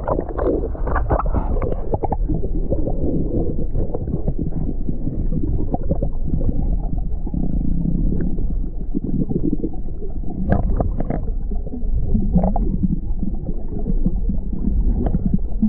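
Muffled rumble and gurgling of water around a camera held underwater in a shallow flat, with a few light clicks about two-thirds of the way through.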